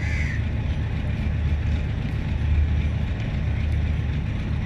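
Diesel locomotive engines running with a steady low hum. A brief high chirp comes at the very start.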